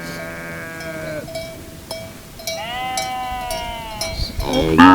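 Sheep in a large flock bleating: three long, drawn-out bleats, the last one loudest near the end.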